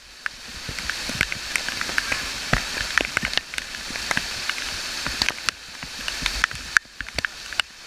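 Waterfall water pouring down and spattering close by: a steady rushing hiss with many sharp splashes and drops hitting throughout.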